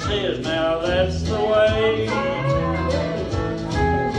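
Country song: a voice singing over guitar accompaniment.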